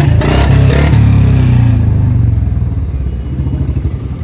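Royal Enfield Standard 350 single-cylinder engine running through a free-flow C-type bend pipe and short bottle silencer. It revs up briefly in the first second or so, then eases back to a steady thump. There is a slight airy note, which the rider puts down to air leaking at the bend-pipe joint.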